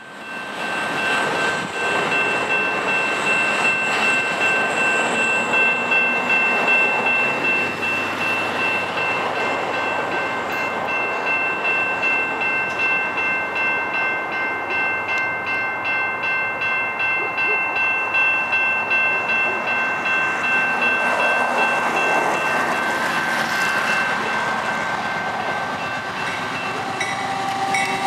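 Level-crossing warning bell ringing steadily while a Canadian Pacific freight led by GE AC4400CW diesel locomotives approaches; the locomotives' engine and wheel noise swells in the last few seconds.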